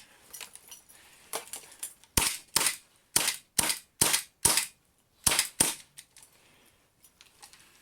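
WE gas-blowback airsoft Colt 1911 pistol, mounted in a carbine kit, firing about eight sharp shots in quick succession, roughly two a second, each the pop of the gas charge and the slide blowing back.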